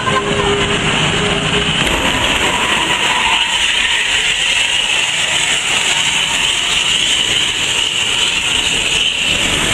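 Indonesian 'telolet' bus horn, a set of multi-tone air horns, sounding loud sustained tones: a held lower note for about the first two seconds, then a steady high-pitched blare.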